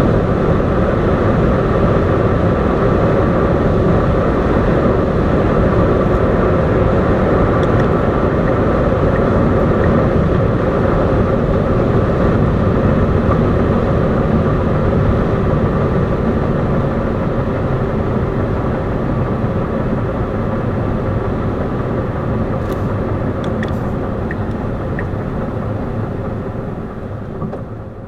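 Steady road and wind noise of a Tesla Model S electric car at high autobahn speed, with a faint steady whine; it grows gradually quieter over the last ten seconds or so.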